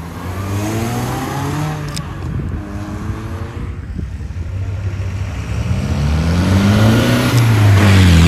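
Two cars pulling away in turn. First a 2005 Mini Cooper S with its supercharged four-cylinder accelerates away, its engine note rising. Then an old Land Rover Series revs up and drives off close by, louder, its note climbing to a peak near the end and then falling.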